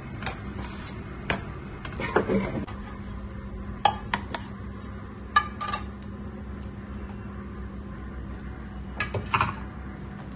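Kitchen clatter: a spatula scraping and clinking against a frying pan, a series of irregular sharp metal clinks over a steady low hum.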